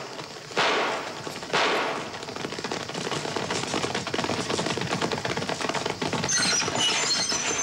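Two gunshots about a second apart, followed by the fast, continuous clatter of galloping horses' hooves and a horse-drawn stagecoach rolling over rough ground.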